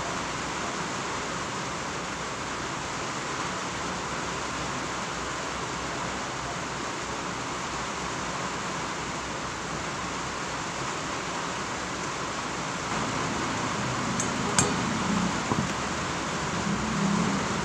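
A steady, even hiss, with one sharp metallic clink of a spoon striking metal kitchenware near the end and a few faint ticks after it.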